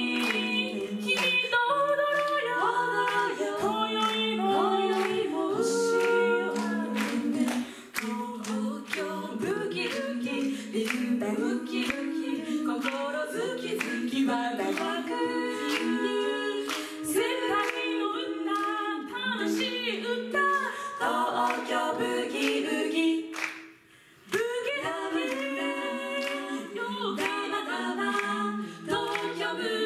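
Female a cappella group singing in parts into stage microphones, with short percussive clicks running through the singing. The voices stop briefly about 24 seconds in, then start again.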